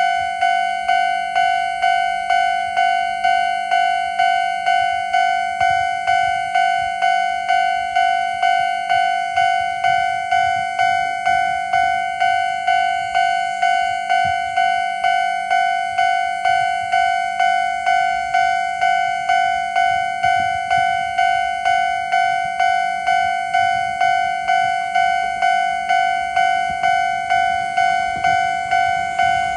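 Railway level crossing warning bell ringing: a steady, evenly repeated ding, about two strikes a second, sounding as the crossing's alarm warns of an approaching train.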